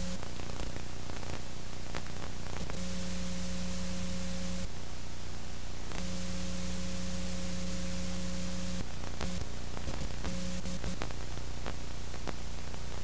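Steady static hiss with a low electrical hum that cuts in and out several times.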